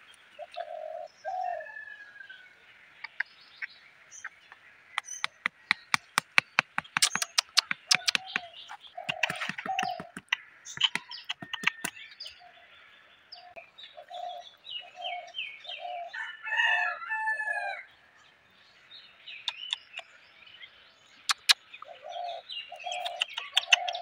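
A small hammer taps bamboo stakes into the soil in several runs of quick, sharp taps. Birds call throughout: short repeated low notes and higher chirps.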